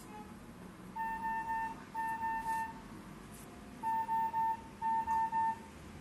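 Automated external defibrillator (AED) trainer sounding its shock alert: short electronic beeps at one steady pitch in groups of three, four groups in all, signalling that an electric shock is about to be delivered.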